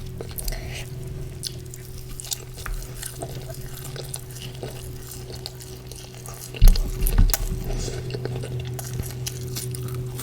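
Close-miked eating sounds of chicken curry and porota: small wet clicks and smacks as the food is handled and eaten, over a steady low hum. A heavier low thump comes about two-thirds of the way through.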